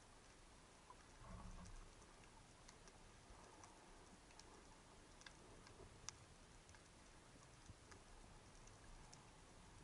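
Near-silent underwater ambience picked up by a camera in its housing, with faint, irregular sharp clicks and ticks and a brief low rumble about a second and a half in.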